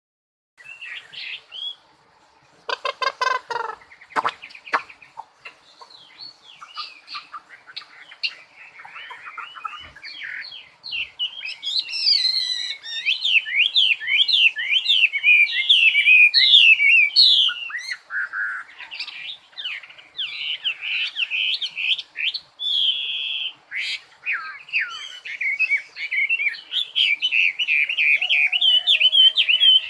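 Songbird singing: a continuous run of rapid chirps, whistled trills and quick rising and falling notes, with a short harsh, buzzy call about three seconds in.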